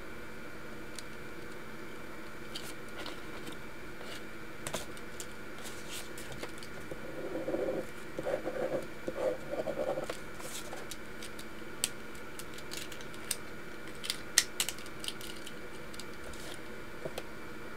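A loose-leaf paper sheet being handled and shifted by hand, with a rustling, rubbing stretch near the middle and scattered small clicks and taps, the sharpest a quick cluster near the end. A steady hiss runs underneath.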